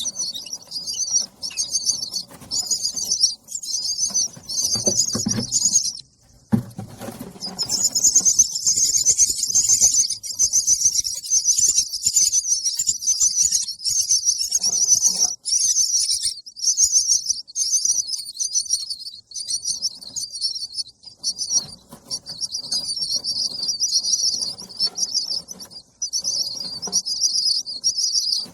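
Baby bird begging for food: a near-continuous stream of rapid, high-pitched chirps, broken by short pauses and a longer pause about six seconds in. Fainter low rustling runs underneath at times.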